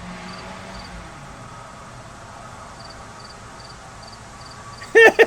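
Faint insect chirping, short high double pulses about twice a second, over a low hiss. Near the end a loud, rhythmic burst of laughter breaks in.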